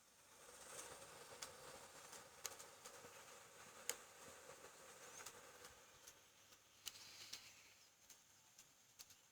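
Near silence with faint, scattered clicks, about one every second or so.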